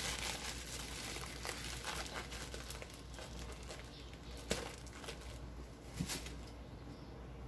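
Pot of water on a gas stove heating toward the boil, with irregular faint crackling and ticking as small bubbles form. A couple of sharper clicks come about four and a half and six seconds in.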